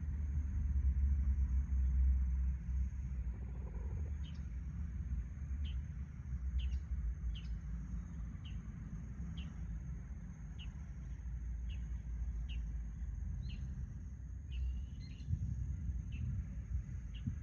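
Outdoor yard ambience: a steady low rumble, like wind on the microphone or distant traffic, under a thin steady high insect drone. From about four seconds in, a small bird gives short high chirps roughly once a second.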